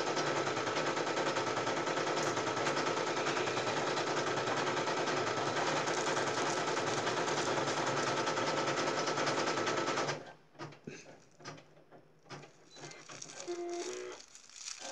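Embroidery machine stitching with a rapid, even mechanical clatter that stops abruptly about ten seconds in. After that come only faint rustles and small clicks of paper pattern and fabric being handled.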